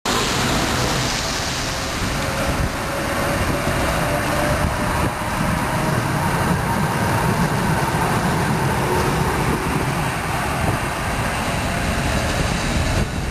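A tram rolling past on its rails, with a steady rumble of wheels on track and a faint whine that drifts in pitch.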